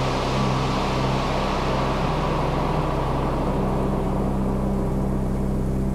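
Background music: held synth notes over a hissing wash that fades over the second half.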